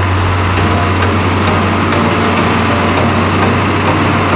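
Diesel engines of heavy machinery running steadily with a constant low drone: a dump truck tipping its load of sand while a wheel loader moves in close.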